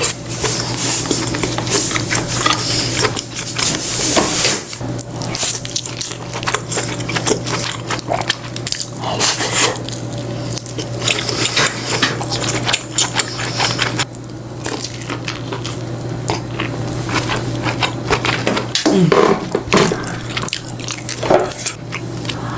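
Wet eating sounds of crab and lobster: shell cracking and meat being chewed and sucked, a dense, irregular run of crackles, clicks and squelches.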